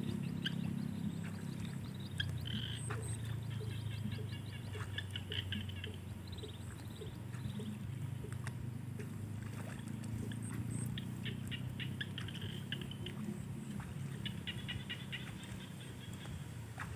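Small paddy-field frogs calling: short trains of rapid, clicking croaks, each about a second long, repeating several times over a steady low drone.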